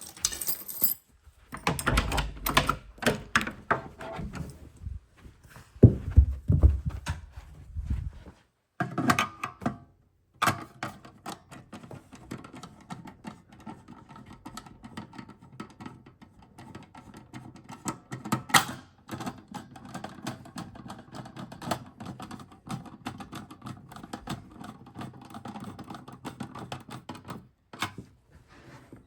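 A run of irregular clicks, knocks and thumps, as of things being handled. They are dense and loud for the first several seconds, then fewer, with a few sharp single clicks later on.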